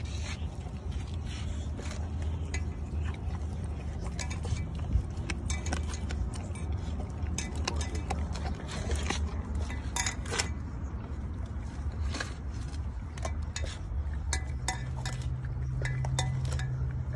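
A Rottweiler eating chicken: irregular sharp clicks and crunches of chewing, and clinks against a steel food bowl, over a steady low rumble. A low steady hum joins near the end.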